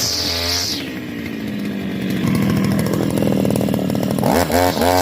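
DENKO 5436 grass cutter's small petrol engine being throttled: high revs that drop to idle about a second in, then climb steadily again, with a few quick throttle blips near the end.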